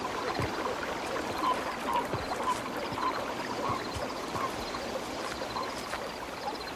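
Water running with a steady rushing, like a stream, with soft short chirps about twice a second.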